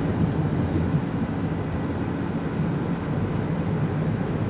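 Steady road and engine noise heard from inside a moving car's cabin, a low, even drone.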